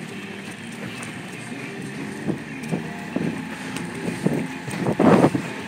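Outboard motor running steadily as the boat moves, with wind on the microphone. A few short knocks come through the middle, and a loud sudden burst of noise about five seconds in.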